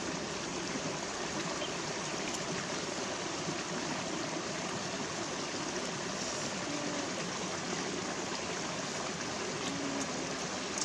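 Shallow, rocky stream running with a steady rush of water.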